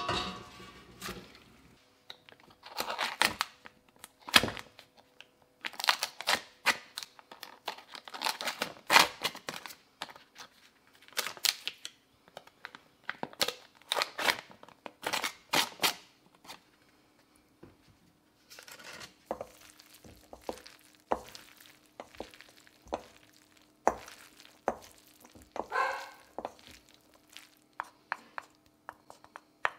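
Kitchen handling sounds: a steel clank at the start, the paper wrapper of a block of butter crinkling as butter is scraped onto cooked pasta, and a utensil clinking and scraping in a stainless steel bowl as the pasta is tossed. These come as many short, irregular clatters and rustles.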